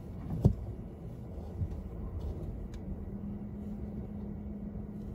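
Low steady rumble of a car heard from inside its cabin as it waits in a queue. A sharp knock comes about half a second in, and a steady low hum sets in around three seconds.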